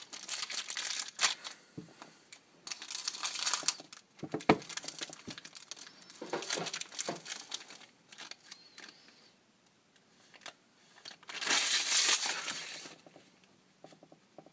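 Plastic wrapping crinkling and tearing in about four separate bursts as a sealed box of trading cards is unwrapped and opened, with a few sharp clicks and knocks between them. The longest burst comes near the end.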